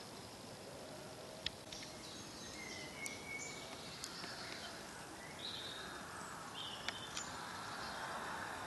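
Woodland ambience: a steady faint hiss with scattered short birdsong notes and a few sharp clicks. The background noise swells slightly near the end.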